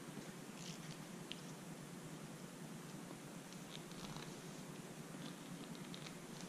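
Faint small clicks and rustles of monofilament fishing line being handled and pulled between the fingers, over a steady low hum.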